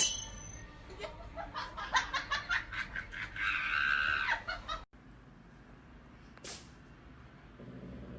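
A person laughing in rapid high-pitched bursts that rise into a squeal, then cut off suddenly about five seconds in; after that only faint hiss and a single click.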